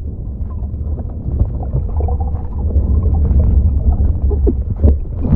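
Muffled underwater sound picked up by a GoPro in its housing: a steady low rumble of water moving around the camera, with nothing above a dull, deep range.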